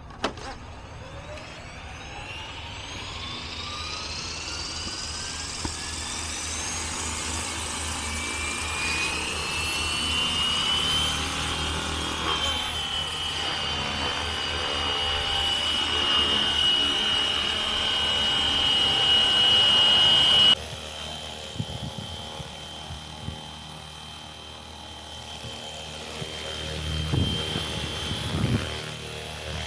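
FlyWing FW450 V3 electric RC helicopter spooling up. The motor and rotor whine climbs steadily in pitch for about twelve seconds, then holds a steady high whine as the helicopter lifts off and hovers. About two-thirds of the way through the sound drops suddenly, and the whine continues fainter, with a couple of low rumbles near the end.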